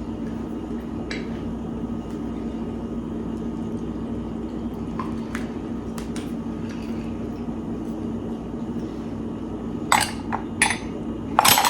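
Quiet kitchen handling over a steady low hum, with a few faint clicks, then loud clinks and clatter of a utensil against a bowl about ten seconds in and again near the end.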